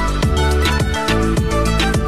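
Background music with a steady beat, deep bass drum hits about twice a second under held instrumental notes.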